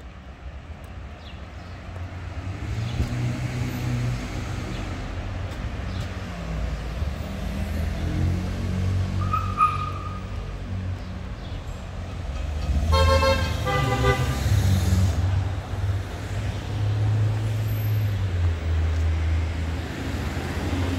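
City street traffic: a steady low engine rumble from passing vehicles, swelling after the first couple of seconds. A car horn honks twice in quick succession about two thirds of the way through.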